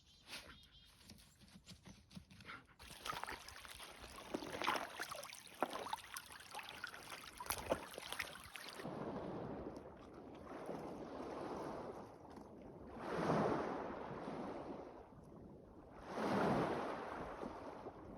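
Ocean waves washing in, each surge swelling and fading every few seconds, after a stretch of crackling noise in the first half.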